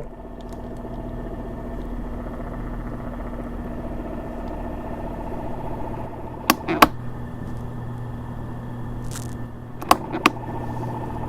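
Iris Ohyama ENC-23K circulator fan starting up and running with a steady hum and whine. This is the new abnormal noise that has appeared on the replacement unit. Two pairs of sharp clicks come about halfway through and again near the end.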